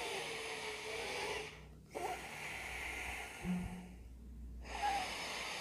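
A man taking slow, deep, audible breaths in and out as a breathing exercise, about three long airy breaths with short pauses between them.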